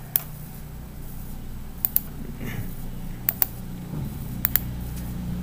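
Computer mouse button clicking: one click, then three quick double clicks about a second and a half apart, over a steady low hum.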